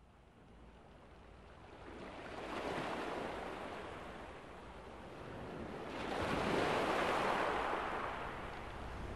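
Sea waves washing onto a shore: two swells of surf noise, one peaking about three seconds in and a louder one about seven seconds in.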